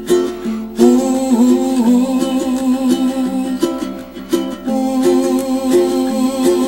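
Ukulele music: plucked strings playing a tune.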